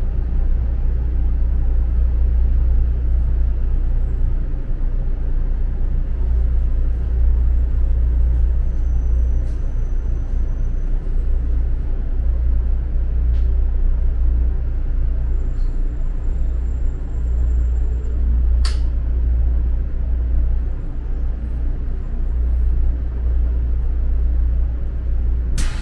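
Interior running noise of a 500 series Shinkansen bullet train at a vestibule door: a steady low rumble with an even hiss above it.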